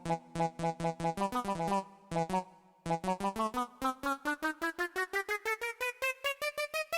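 Roland XPS-series keyboard playing a cumbia synth patch: fast, short, repeated notes, a brief break about two and a half seconds in, then a run of notes climbing steadily in pitch.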